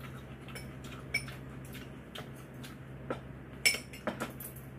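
Cutlery clicking and clinking against dishes while eating, in scattered light taps with one sharper clink about three and a half seconds in, over a low steady hum.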